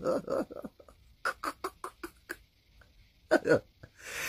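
A person's voice making a quick run of short, separate vocal bursts, about five a second, then two louder ones a second later, after a few closing words of speech.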